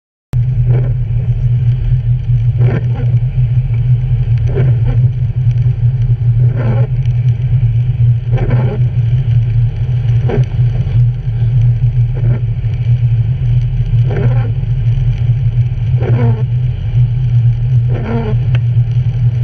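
Inside a car driving on a wet highway: a steady low drone of engine and tyres on the wet road, with the windshield wipers swishing across the glass about every two seconds, each sweep gliding down in pitch.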